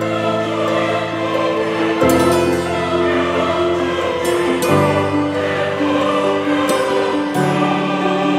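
Background music: slow, sustained chords that change about every two to three seconds.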